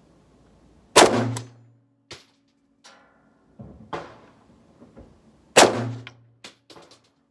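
Two rifle shots from a Mak 90, a 7.62×39 AK-pattern semi-automatic, about four and a half seconds apart, each ringing out briefly, with lighter metallic clacks between and after them. The rifle has been failing to feed and cycle reliably.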